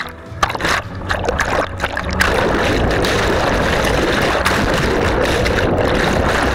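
Churning river whitewater breaking over and around an action camera held in the rapids. It starts with separate splashes, and about two seconds in becomes a loud, steady rush of foaming water with the camera under the surface.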